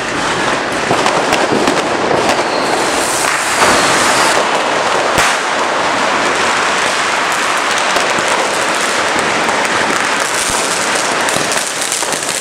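A dense, continuous crackle of Lunar New Year firecrackers and fireworks going off, hundreds of rapid bangs running together, with a few louder bangs about a third of the way in.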